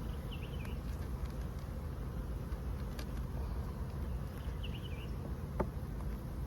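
Honeybees buzzing steadily around an open hive during an inspection. Two short bird chirps, one early and one a little past the middle, and a single click near the end.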